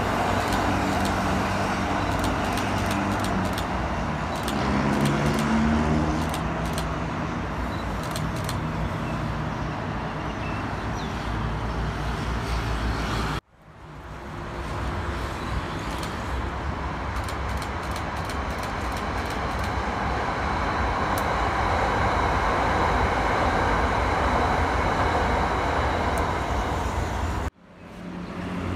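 Steady city road traffic: cars and heavier vehicles running past, engines and tyres, with a brief cut to silence about halfway through and again near the end.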